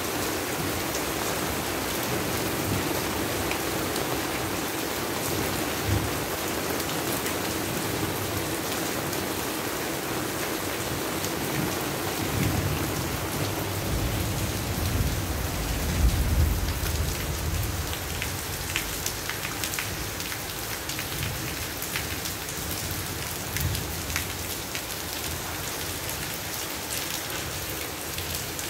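Steady, gentle rain falling on a garden and nearby roofs, heard from under a covered porch. A low rumble swells about midway and peaks a few seconds later before easing off.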